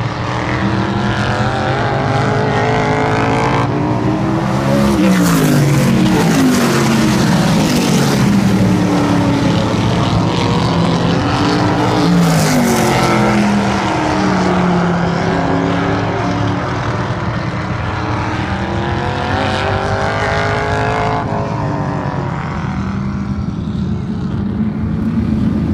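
A pack of oval-track race cars running laps together, several engines at once whose pitch rises and falls as the cars come past and go away. It is loudest in the middle and eases off near the end.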